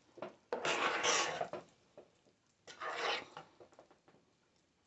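A metal spoon stirring and folding thick mashed potatoes in a stainless steel saucepan: two scraping, squishing strokes, one about half a second in and one about three seconds in.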